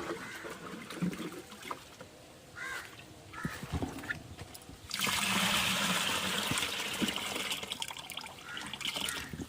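Water pouring in a steady stream, starting about halfway through and stopping near the end.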